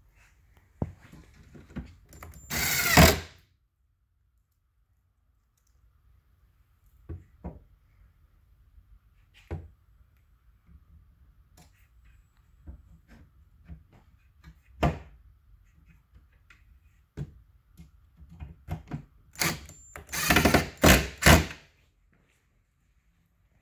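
Power drill driving screws into cabinet parts: one short run about three seconds in and a string of quick bursts near the end, with scattered knocks of wooden panels being handled in between.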